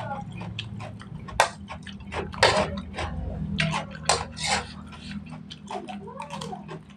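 A metal spoon clinking and scraping against a nonstick wok as fried noodles are scooped up, a run of sharp clicks with a few louder knocks, mixed with close-up chewing.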